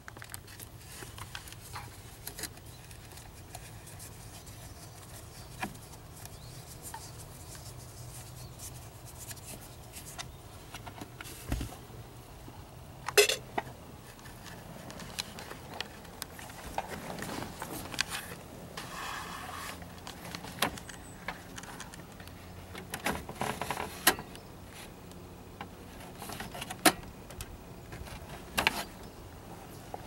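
Scattered clicks, taps and rustling of hands working plastic trim and small parts off a 1981 Ford F-150 steering column, with a sharper knock about 13 seconds in and a cluster of clicks near the end.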